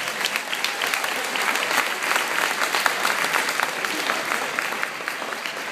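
Crowd applauding, a dense patter of many hands clapping that swells through the middle and thins toward the end.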